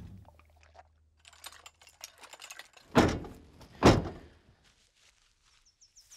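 Two heavy thuds about a second apart, amid faint rustling and light clicks, while a low drone fades out over the first two seconds.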